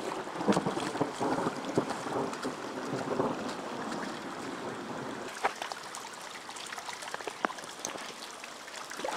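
Heavy rain falling, with water running and scattered drips and taps; it eases a little about halfway through.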